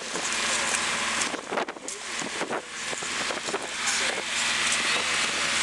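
Boat engine running steadily under a strong rush of wind noise, with faint voices in the background.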